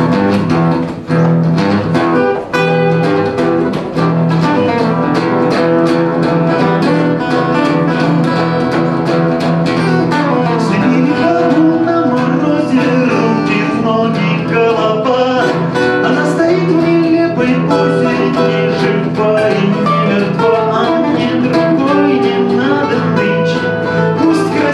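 Acoustic guitar playing a song live, starting suddenly and then running on steadily.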